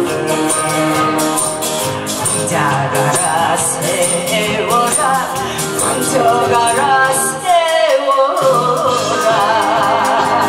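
A woman singing into a hand microphone over a recorded backing track with a steady beat.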